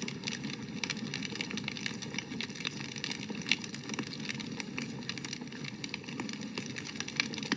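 Wood fire burning with a steady low rush of flames and frequent crackles and snaps, one louder pop about three and a half seconds in.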